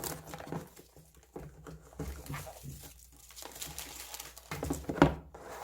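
Packaging being handled: irregular rustling and crinkling with scattered light taps, and one louder knock near the end.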